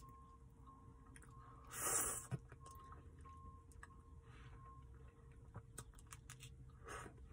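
Mouth sounds of eating a cherry-dipped soft-serve cone: a loud slurping bite into the hard cherry coating about two seconds in, softer licking and chewing with small wet clicks, and another bite near the end.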